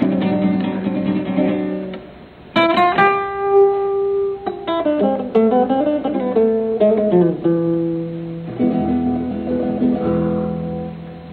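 Metal-bodied resonator guitar played solo: a held chord, a short pause, then a loud struck chord ringing out, a quick run of single notes, and more held chords that fade near the end.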